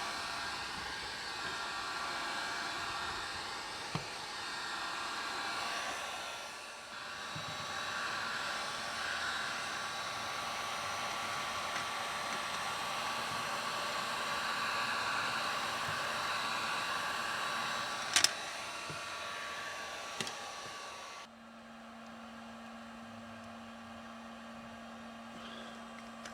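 A motor-driven machine running with a steady whooshing whir, with two sharp clicks late on. About 21 seconds in the whir stops abruptly, leaving a quieter low steady hum.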